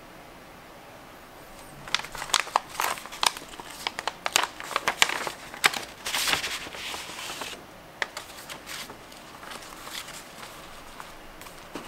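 Paper envelope being handled and a booklet slid out of it: crinkling, crackling paper starting about two seconds in and loudest in the middle, then a few lighter rustles and taps.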